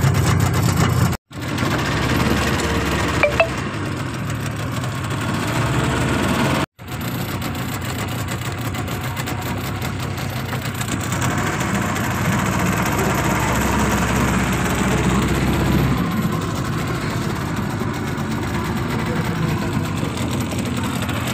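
Passenger motorboat's engine running steadily, with two momentary breaks in the sound.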